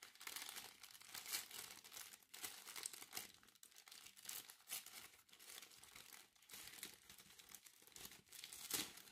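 Brown kraft paper crinkling faintly as a small wrapped packet is opened by hand: a steady run of small crackles.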